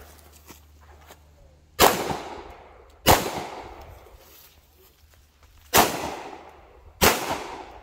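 Four pistol shots in two pairs, the shots in each pair about a second and a quarter apart, each one ringing out with an echo that dies away over about a second.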